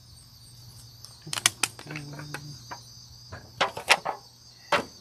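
Thin aluminum foil loaf pan crinkling and crackling as a bread loaf is worked out of it, with a few sharp crackles about a second and a half in and again near the end. A steady high insect chirring runs underneath.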